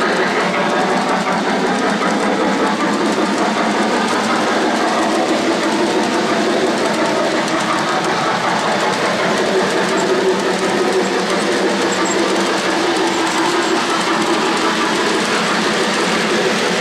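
O-gauge three-rail model freight train rolling past, a steady noise of metal wheels running on the rails.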